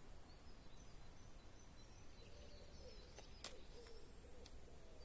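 Near silence: faint room tone, with a faint held low tone in the middle and a single faint click.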